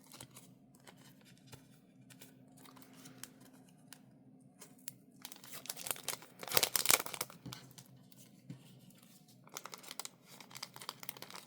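Packaging crinkling and rustling as it is handled during an unboxing, with a louder burst of crinkling a little past halfway through.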